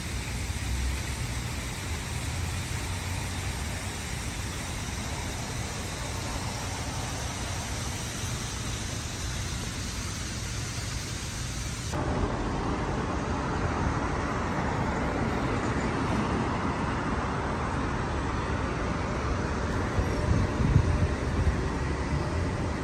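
Downtown street ambience with a steady hum of road traffic. About halfway through it cuts to a louder, fuller traffic noise, with a few brief low bumps near the end.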